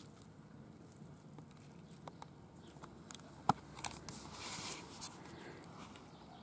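Faint camera-handling noise as the camera is turned around by hand: scattered light clicks and a brief rustle, with one sharper tap about three and a half seconds in.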